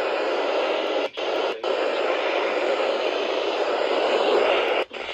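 Steady radio static hiss between alert broadcasts, cut by a few brief dropouts.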